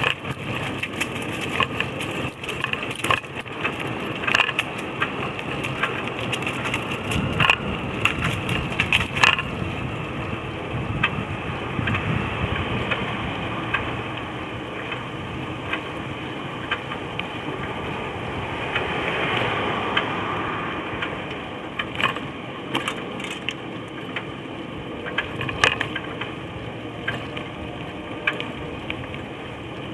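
Cruiser bicycle rolling along a path, heard from a bike-mounted camera: steady rolling noise with frequent clicks and crackles as the tyres crunch over dry fallen leaves.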